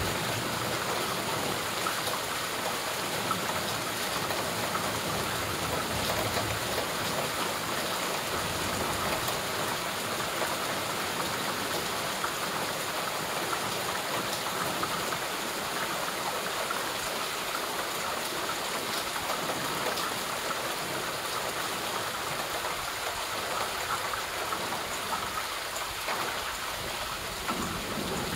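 Steady rainfall: an even, unbroken hiss of falling drops.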